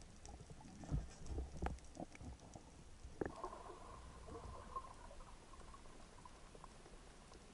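Underwater sound heard through a diving camera's housing: a few dull knocks and thumps over the first three seconds or so, then a faint steady hum that fades out.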